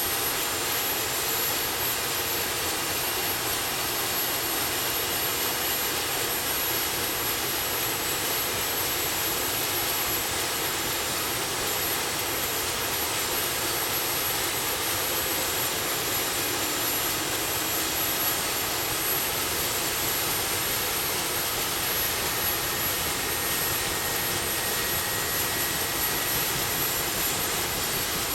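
CH-47 Chinook helicopter's twin turboshaft engines running steadily: a continuous rushing turbine noise with thin, steady high-pitched whistles and a faint tone that slowly shifts in pitch.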